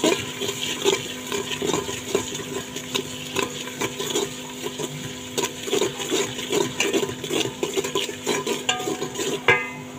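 Metal slotted spoon stirring an oily masala with tomato ketchup around a metal pot: repeated irregular scrapes and clinks of spoon on pot, with a sharper clink near the end.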